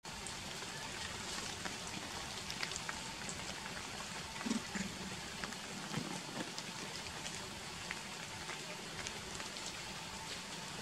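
Outdoor ambience among trees: a steady hiss with many small scattered ticks and crackles. There is a brief low sound about four and a half seconds in, and another about six seconds in.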